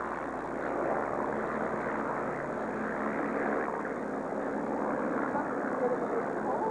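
Steady distant roar of a formation of jet aircraft flying past.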